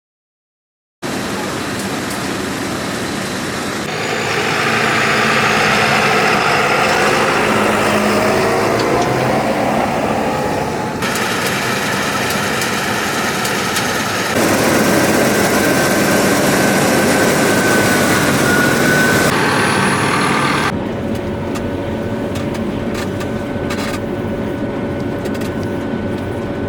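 Heavy harvest machinery engines running steadily, with gliding whines, in several spliced stretches that change abruptly in loudness and tone.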